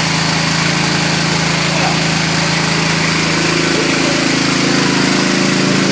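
Small Robin petrol engine driving a water pump, running steadily to pump out floodwater. Its note shifts slightly a little past halfway.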